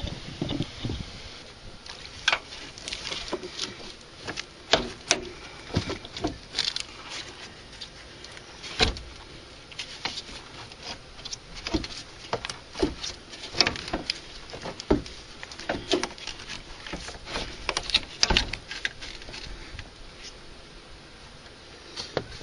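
A new Interstate car battery being worked down into a truck's battery tray: irregular knocks, clunks and scrapes of the battery case against the tray and surrounding parts, with a few sharper knocks spread through.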